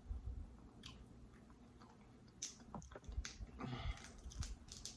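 Close-miked eating of snow crab legs: chewing and biting, with scattered sharp clicks and a short noisy patch about three and a half seconds in.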